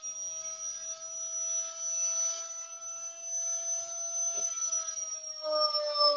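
Universal (brushed) washing-machine motor running at full speed on a speed regulator, giving a steady high whine. About five seconds in, its pitch starts to fall slowly as the motor slows.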